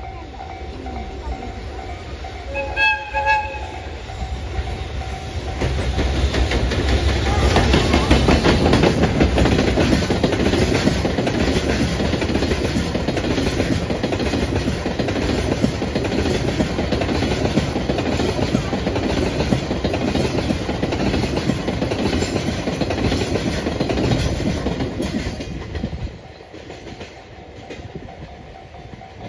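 Level crossing alarm ringing, and about three seconds in a short horn blast. Then a JR Freight EF210-100 electric locomotive passes hauling a train of sixteen Taki tank wagons, with loud wheel clatter over the rails for about twenty seconds, ending suddenly as the last wagon clears the crossing.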